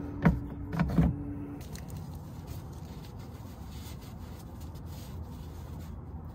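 Handling noise under a car. A few sharp clicks and knocks in the first second come from a gloved hand wiping spilled oil off the underbody parts with a rag. After that there is only a steady low rush.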